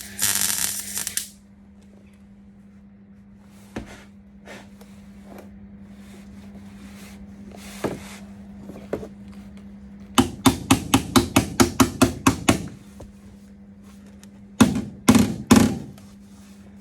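Hammer blows on the sheet steel of a repair panel being knocked into place: a quick run of about a dozen strikes, around five a second, about ten seconds in, then three more near the end. A short hissing burst opens, with a steady low hum underneath throughout.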